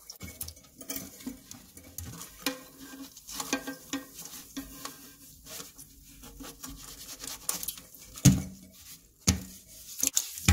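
Bottle brush scrubbing inside a toilet tank to clear calcium deposits from the flapper and its drain hole: irregular scraping and swishing in the water with small clicks, and a few sharper knocks near the end.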